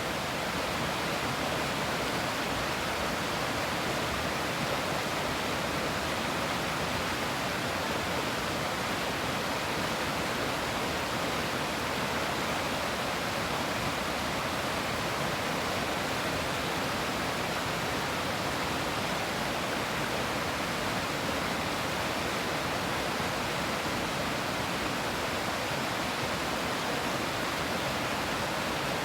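River water rushing steadily over rocks, an even, unbroken roar of flowing water.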